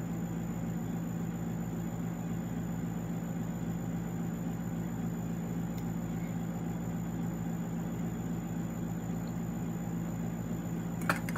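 A steady low electrical or mechanical hum from a running appliance or machine, unchanging throughout, with a faint hiss over it. A couple of light clicks come near the end.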